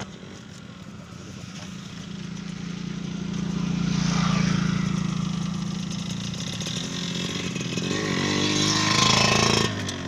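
A motorcycle engine running and passing by. It grows louder to a peak about four seconds in, rises in pitch as it revs near the end, and drops away suddenly just before the end.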